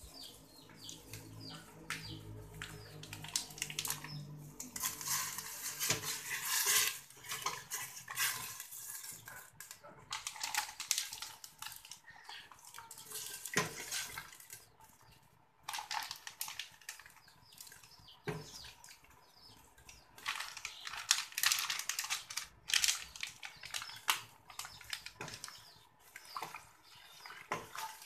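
Metal spoon stirring a stainless steel stockpot of laksa broth: the liquid swishes while the spoon clinks and scrapes against the pot, in several bouts with short pauses between them.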